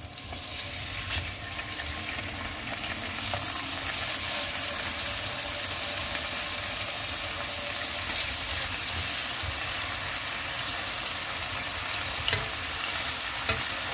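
Raw lean pork pieces sizzling in hot cooking oil with crushed shallots in a non-stick pan as they are laid in one by one. The sizzle swells over the first couple of seconds, then holds steady.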